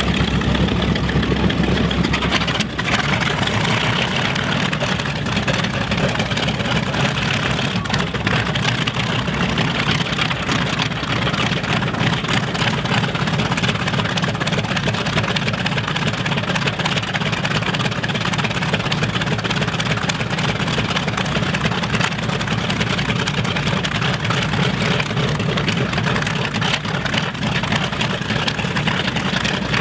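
B-25 Mitchell's Wright R-2600 radial engine running steadily on the ground just after start-up, a loud, even, rapid pulsing engine note.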